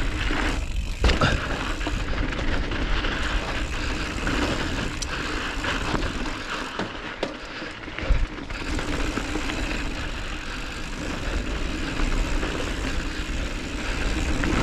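Wind rushing over the helmet-camera microphone as a mountain bike rolls fast down a dirt trail, with a steady low rumble from the knobby tyres and a few sharp knocks from the bike over bumps, the loudest about eight seconds in.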